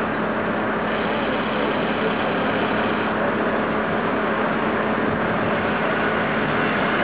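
Steady city street noise with an engine idling, unbroken throughout.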